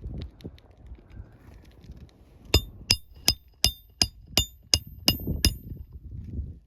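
Hand hammer driving a roofing nail into an asphalt shingle: nine sharp, ringing strikes about three a second, starting a little before halfway.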